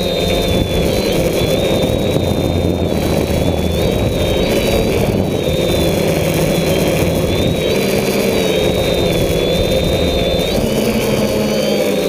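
DJI F550 hexacopter's six motors and propellers whining, the pitch wavering up and down, over heavy rumbling wind noise on the onboard microphone in high wind.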